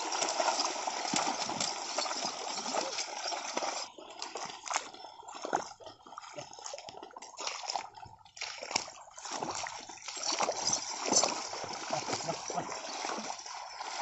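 Bullocks' hooves and a dragged levelling board splashing and sloshing through the water and mud of a flooded paddy field during puddling. The splashes come irregularly, sparser in the middle and thicker near the end.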